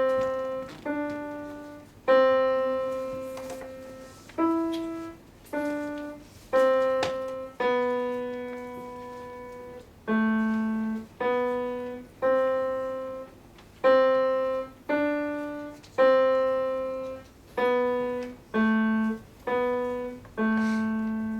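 Acoustic piano playing a slow melody of single notes in the middle register, each struck and left to ring and fade before the next, about one note a second.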